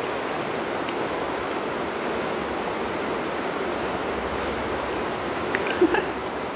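A steady, even background hiss, with a few light clicks of cutlery against plates near the end.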